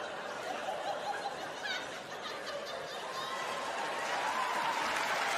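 An audience laughing, many voices overlapping, building up louder over the last few seconds.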